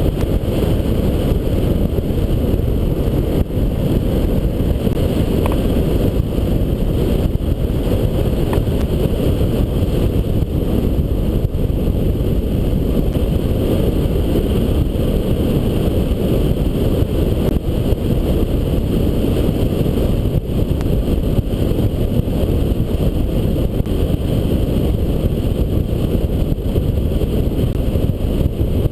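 Wind noise from the airflow over the microphone of a camera mounted on a hang glider in flight: a steady low rumble with no engine note.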